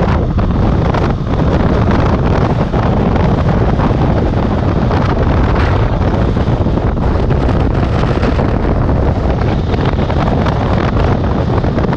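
Steady wind buffeting on the microphone of a moving motorcycle, with the BMW R1200GS's flat-twin engine running at an even cruising pace underneath.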